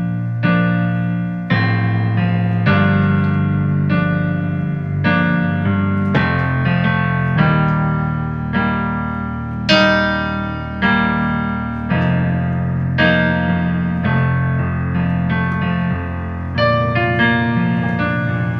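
Sampled Yamaha S90 ES piano played live on a MIDI keyboard and heard through a Tronsmart Element Force+ Bluetooth speaker: slow chords over held bass notes, a new chord struck about once a second.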